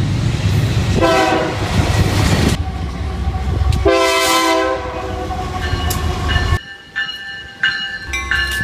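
Diesel freight locomotive passing with its engine rumbling, sounding its horn twice: a long chord about a second in and a shorter blast about four seconds in. Near the end the rumble cuts off abruptly, and short high tones and a lower steady hum follow.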